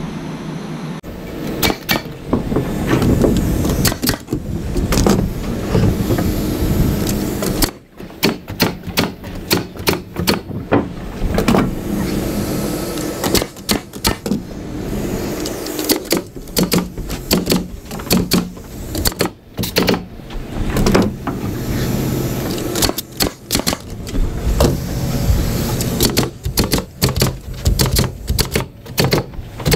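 Pneumatic framing nailer driving nails into 2x4 framing lumber: sharp shots, many in quick clusters, over a steady low hum.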